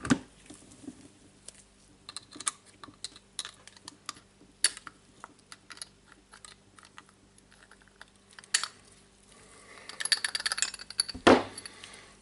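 Light metallic clicks and taps as small steel parts of an impact driver's hammer and gear housing are handled and picked out with needle-nose pliers. A quick run of clicks comes near the end, then one louder knock.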